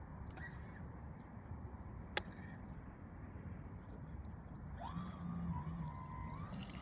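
Electric motor whine of a bait boat starting about five seconds in, rising in pitch and then wavering up and down as the throttle changes, over a steady low rumble.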